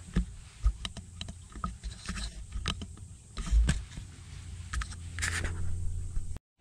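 Handling noise from a handheld camera: irregular clicks, knocks and scrapes as it bumps and rubs against a vinyl seat and a mesh bag, over a steady low rumble. The loudest thump comes about three and a half seconds in, and the sound cuts off abruptly just before the end.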